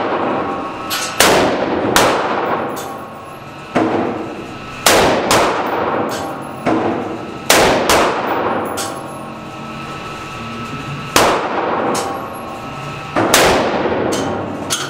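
Rifle shots from a 5.56 AR-style rifle fired one at a time, about eight of them, irregularly spaced a second or two apart with a longer pause midway. Each shot rings on in the echo of an indoor range.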